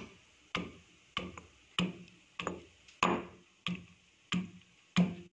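Stone pestle pounding soaked kudampuli (Malabar tamarind) in a stone mortar: a steady run of about nine knocks, roughly three strokes every two seconds.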